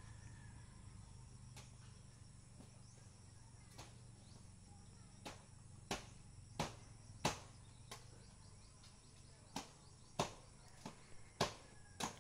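Sharp chopping strokes of a blade hacking at a coconut bunch's stalk, about one every two-thirds of a second in two runs starting about five seconds in. Under them is a faint steady insect drone.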